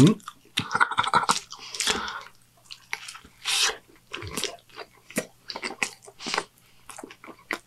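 A person chewing a mouthful of Whopper burger close to the microphone: a run of irregular short crunches and mouth clicks.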